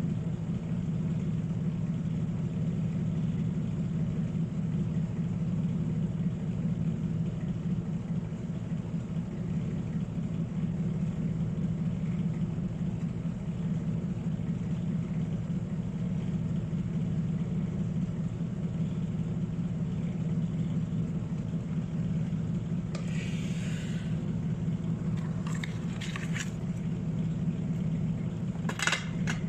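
Steady low hum of a small motor or fan running. A few short scrapes or clicks come near the end.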